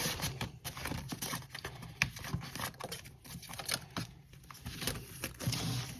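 Paper pages of a handmade junk journal being handled and turned: a string of light, irregular rustles and taps.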